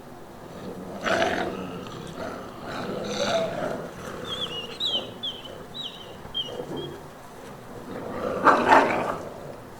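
Gray wolves growling and snarling in two harsh outbursts, one about a second in and a louder one near the end. In between comes a run of about six short, falling high-pitched whines.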